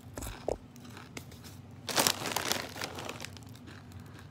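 Doritos chip bag crinkling and rustling as it is handled and a hand reaches in for another chip, loudest in a burst about two seconds in.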